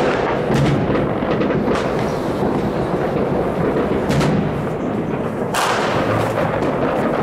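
Fireworks going off all over a city at once: a continuous din of distant bangs and crackle, with a louder single bang every second or so.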